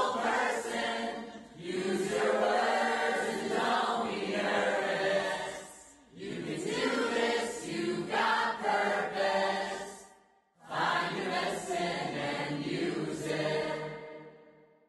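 A group of voices singing in phrases a few seconds long, with short breaks between them, fading out near the end.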